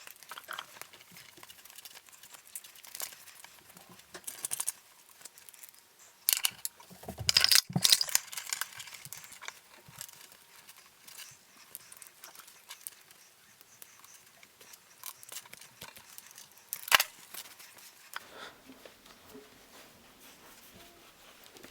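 Scattered clicks, light rattles and rustling from small parts and tools being handled while an RC truck is taken apart and cleaned. There is a louder flurry of rattling about seven seconds in and one sharp click about seventeen seconds in.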